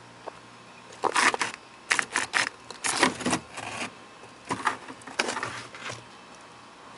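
Packed freezer frost and ice crunching and scraping in irregular bursts as a frost-encrusted plastic tub is worked loose and pulled out by hand, starting about a second in and dying away near the end.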